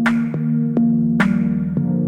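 Background music: electronic instrumental with held synth chords and a steady beat of sharp percussive hits.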